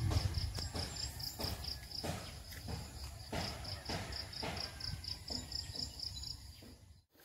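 Cricket chirping: an even run of short high chirps, about four or five a second, that stops about six seconds in. Under it come repeated brushing, rustling sounds, like steps through grass.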